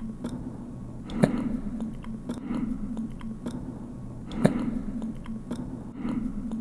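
Someone chewing close to the microphone, a soft chewing sound about every half second with two sharper clicks, over a steady low hum.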